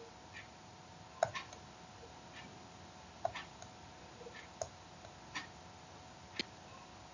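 Faint, irregular small clicks and taps, roughly one a second, the sharpest about a second in, over a faint steady hum.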